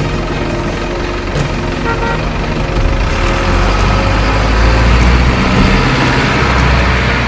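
Diesel truck engine sound, running steadily with a low rumble that builds up somewhat partway through as the loaded RC dump truck pulls away.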